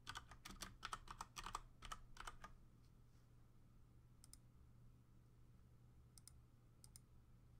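Computer keyboard typing a short word: a quick run of keystrokes lasting about two and a half seconds. Then come a few separate mouse clicks, about four seconds in and twice near the end.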